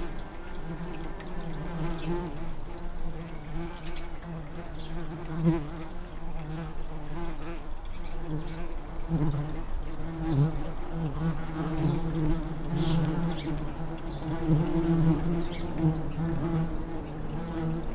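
Tree bumblebees buzzing at their nest box: a steady wing hum that wavers in pitch, with several buzzes overlapping and swelling now and then.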